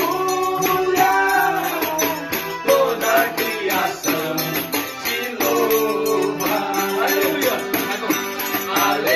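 Worship band music: held pitched melody lines over chords, with a steady high percussion beat like a shaker or tambourine.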